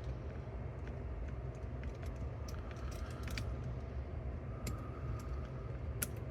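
Scattered light clicks and ticks of small metal and plastic parts being handled and fitted as brake parts are put back into a cassette deck's tape transport, with one sharper click near the end. A steady low hum sits underneath.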